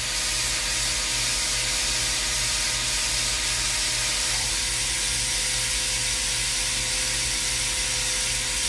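Main spindle of a Tsugami BO325II CNC Swiss-type lathe running at 2500 RPM, a steady hiss with faint steady hums. It gets a little louder just after the start and then holds.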